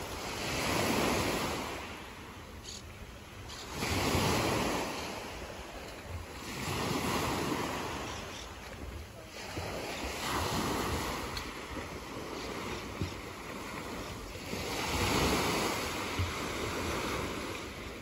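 Small waves breaking and washing up a shingle beach, the surf swelling and fading every three to four seconds.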